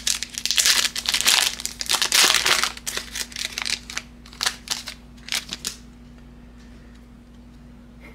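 A foil trading-card pack wrapper is torn open and crinkled. The crackling is dense for about three seconds, then comes in a few separate crinkles and stops about six seconds in.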